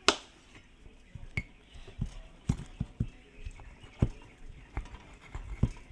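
Kitchen knife work: irregular sharp clicks and light knocks, about one a second, while shallots are peeled with a small paring knife. The loudest click comes right at the start.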